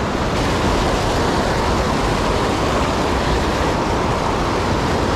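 River water rushing over a rock ledge and through small falls close to the microphone, a loud, steady noise that does not let up.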